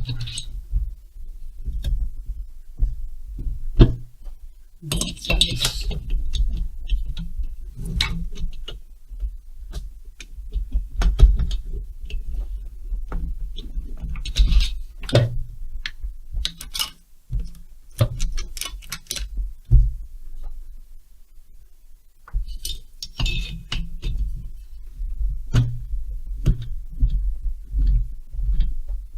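Hand work on a chainsaw: metal tools and parts clinking and knocking irregularly, with handling thumps and a few short rustles.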